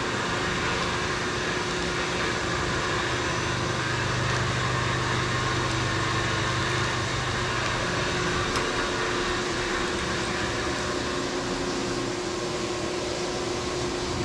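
Fanuc Robodrill CNC mill running a cutting job: a steady hiss of coolant with a machine hum. A lower tone comes in about three seconds in and fades out a few seconds later.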